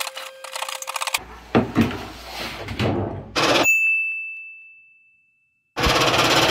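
Hand tin snips cut galvanized sheet metal in quick clicks for about the first second. About three and a half seconds in there is a bright ding, one ringing tone that fades away over about two seconds. Near the end a Lockformer Pittsburgh lock-forming machine starts running with a loud, dense rattle.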